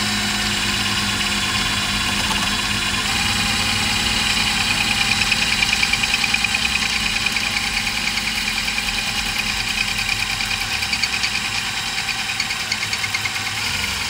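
Cordless drill running steadily at slow speed as its bit bores through an aluminum bracket plate. From about five seconds in, a fast, even flutter comes into the sound as the bit cuts.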